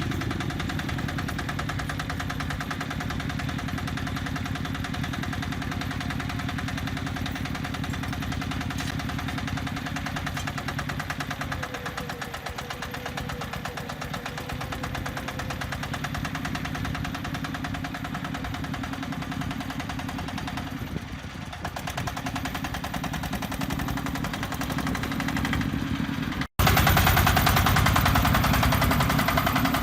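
Engine of a self-loading concrete mixer running steadily with a rapid clatter. It cuts out abruptly about three seconds before the end, then comes back louder.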